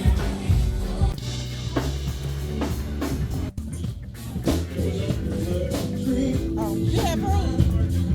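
Music with a drum-kit beat and a heavy bass line, with a brief dip in level about three and a half seconds in.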